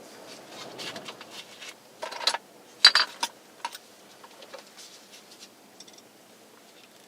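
Light clicks and clinks of small screws and hand tools being handled during work on a steering column, with two louder rattling clusters about two and three seconds in.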